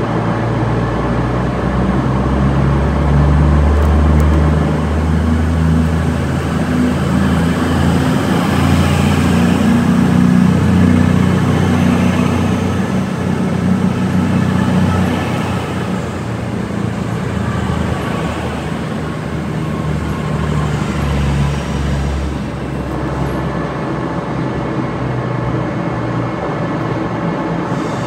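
A CrossCountry Class 221 Super Voyager diesel multiple unit pulls out past at low speed with its underfloor diesel engines running hard. The deep engine drone is loudest for the first half, weakens as the rear cars pass, and fades out a few seconds before the end, leaving only the rumble of the station.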